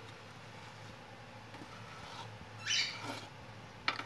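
Metal spatula scraping grout paste along the joint between a granite countertop and the wall: one short scrape about two-thirds of the way in, then a sharp tick near the end.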